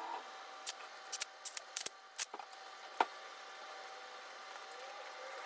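Sharp metallic clicks and clinks, about eight of them irregularly spaced over the first three seconds, as a small wrench works the bolts on a Chinese 110cc engine's cylinder head, over a faint steady hum.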